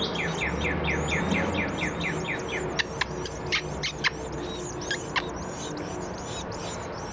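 Nestling birds calling from the nest: a rapid run of short high chirps, about four a second, with a handful of sharper downward-sweeping calls in the middle, over a low steady hum.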